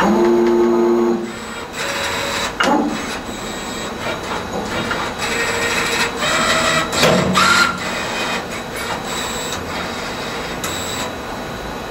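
CNC spring forming machine running through a forming cycle: a servo whine of about a second at the start, then a run of clicks, knocks and short whirring glides as the tool slides work the wire. The cycle repeats about every twelve seconds.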